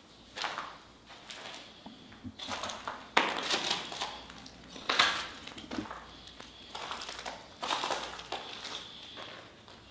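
Footsteps crunching and scraping on grit and rubble over a concrete floor, in irregular bursts with a sharper crunch about three seconds in and again about five seconds in. A faint steady high-pitched tone runs underneath.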